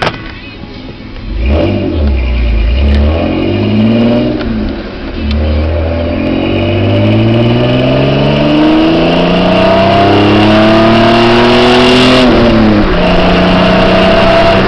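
Ford Ranger's 2.9-litre V6 exhaust through a Flowmaster 40 muffler, accelerating through the gears. The engine note climbs, dips at a shift, climbs again in a long pull, then drops and settles to a steady cruise near the end.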